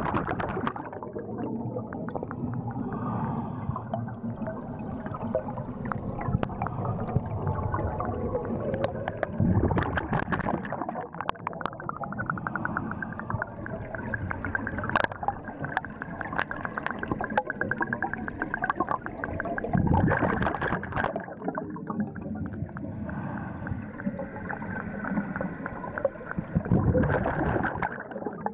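Scuba diver breathing on an open-circuit regulator underwater: exhaled bubbles burst out loudly four times, about every ten seconds, with gurgling and bubble crackle between breaths.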